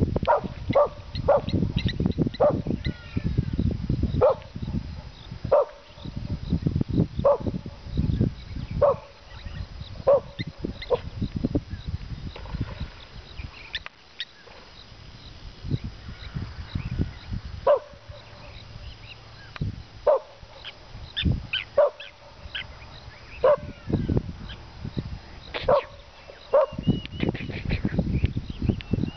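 A dog barking: single short barks repeated at irregular gaps of one to two seconds, with a quieter lull of several seconds midway.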